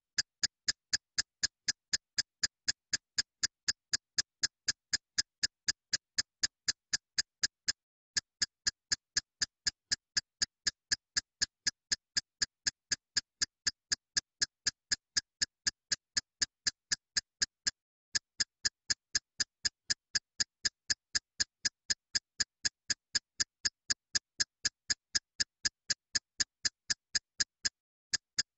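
Steady electronic ticking, about three sharp ticks a second, like a clock or metronome. It falls silent between ticks and pauses briefly about every ten seconds, the pattern of a looped background track.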